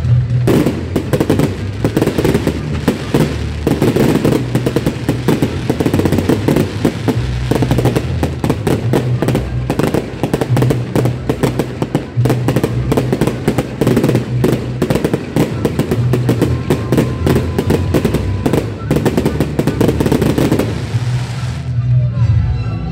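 Fireworks display going off in a dense, rapid run of bangs and crackles, many a second. The run stops about 21 seconds in.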